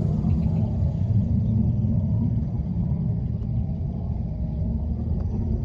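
Wind buffeting the microphone: a steady low rumble that rises and falls irregularly.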